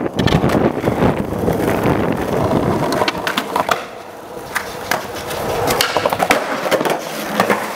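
Skateboard wheels rolling on asphalt, then sharp clacks and scraping as a skateboard grinds along the edge of a concrete ledge and pops off it.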